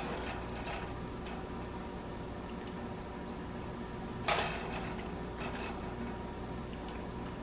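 Macaroni in meat sauce being spooned from a pot into a baking dish with a wooden spoon: soft wet plops, with one short, sharper scrape or knock of the spoon about four seconds in, over a steady faint hum.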